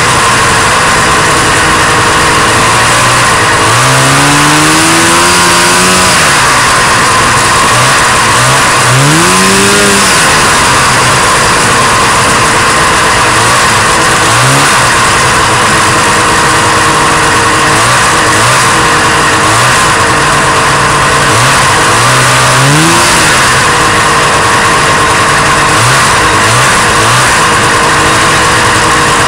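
1977 Arctic Cat Panther 5000 snowmobile's two-stroke engine running on the move under a loud, steady rush of noise. The throttle is pulled several times, so the engine pitch rises sharply about four and nine seconds in and again around twenty-two seconds, with short blips near the end.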